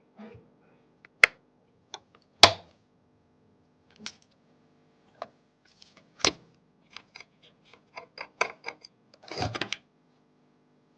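Computer parts being handled and fitted: a series of separate sharp clicks and taps, the loudest about two and a half seconds in, then a quick run of small clicks and a short rattle near the end.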